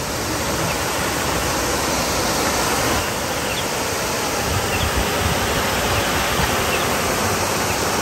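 Small waterfall: a steady, loud rushing of falling water.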